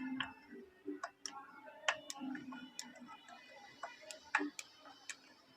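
Scattered soft clicks and taps, irregular and quiet, from small parts and tools being handled while working on a chainsaw's fuel pipe.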